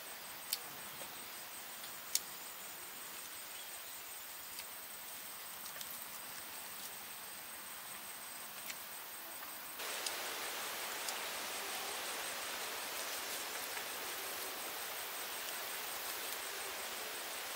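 Outdoor ambience with a steady, rapidly pulsing high insect trill and a few sharp clicks in the first half. About ten seconds in, the background hiss steps up louder.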